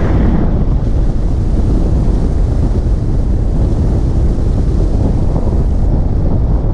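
Heavy wind buffeting the camera microphone while riding at road speed: a steady, loud rumble with no breaks.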